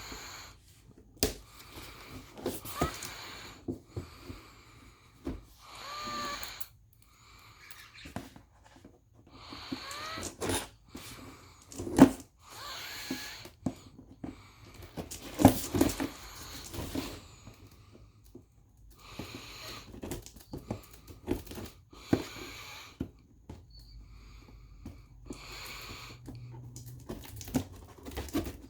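Toy packaging being handled and opened by hand: irregular clicks, knocks and rustling of plastic and cardboard, with a few brief squeaks.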